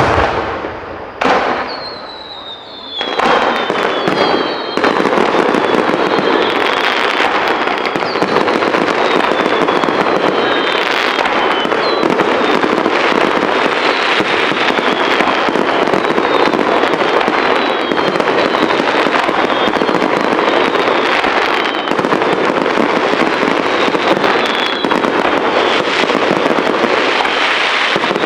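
Aerial fireworks: two sharp bangs, then from about three seconds in a dense, continuous barrage of shell bursts and crackle, with many short whistles falling in pitch.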